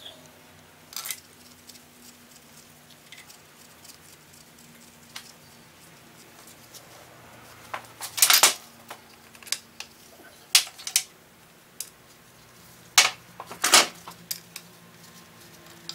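Metal hand tools and bolts being handled on the workbench: scattered sharp metallic clinks and clatters, in clusters a little past the middle and again near the end.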